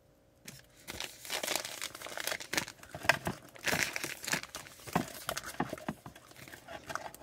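Irregular crinkling and rustling of something being handled, with scattered sharp clicks, starting about half a second in.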